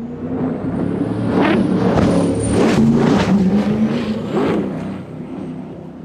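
Performance sundeck boat's inboard engines running hard at speed, a steady deep drone, with several sudden splashes as the hull slams through waves and throws spray. The sound eases off near the end as the boat runs away.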